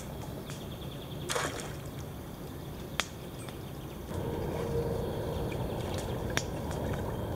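Quiet lakeside ambience. From about four seconds in, it gives way to the louder wash of water against an inflatable boat as it is paddled, with a few sharp clicks and knocks.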